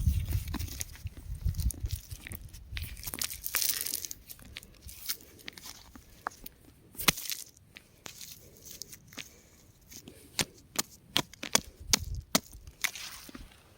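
Crumbling rock: small fragments cracking and trickling in irregular sharp clicks and crackles. The clicks come thickly in the first few seconds, thin out in the middle, and bunch up again near the end, over a low rumble at the start.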